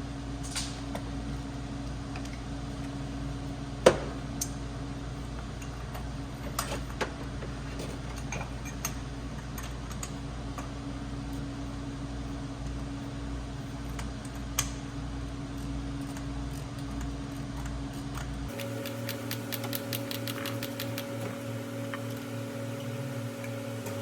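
Steady mechanical hum with scattered tool clicks and knocks on metal, one louder knock about four seconds in. The hum cuts off and changes about eighteen seconds in, then a quick run of even ratchet clicks follows, typical of a ratchet working a spark plug socket.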